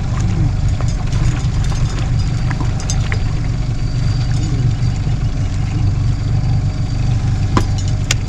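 A boat's outboard motor running steadily with a low, even rumble, with a couple of sharp clicks near the end.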